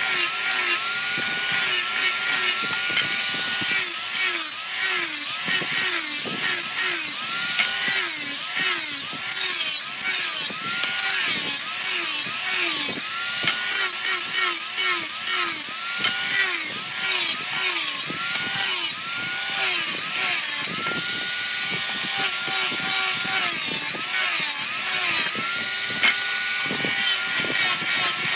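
Angle grinder with a sanding disc on a backing pad, sanding a wooden board. The motor's whine dips in pitch again and again as the disc is pressed into the wood and picks back up as the load eases, over a steady gritty hiss from the abrasive.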